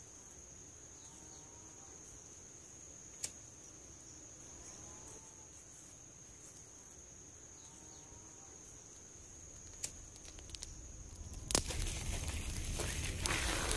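Insects trilling steadily on one high pitch, with a fainter lower call repeating about every three seconds. About eleven seconds in, a louder crackling, rustling noise starts and continues.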